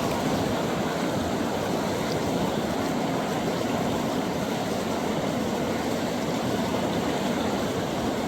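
Steady rush of river water running over a riffle or rapids.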